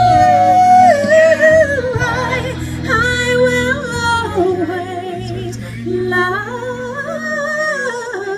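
A woman singing live into a microphone through PA speakers: a long held high note at the start, then melodic phrases that rise and fall, over steady low sustained accompaniment.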